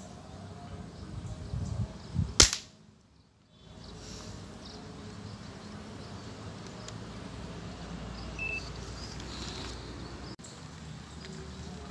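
A single sharp air rifle shot about two and a half seconds in, firing a 4.5 mm pellet, followed by a brief drop-out of the sound and then faint outdoor background.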